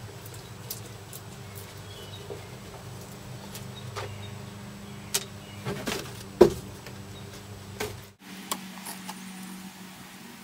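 Scattered clicks and knocks of a car's interior side trim panel being worked free of its screws and lifted out, the loudest knock about six seconds in, over a steady low hum. After about eight seconds, a few light clicks of hog rings being pried off a seat's spring frame.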